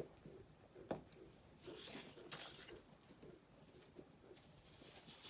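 Faint rustling and a few soft taps of paper cards being put down and shuffled in a folder.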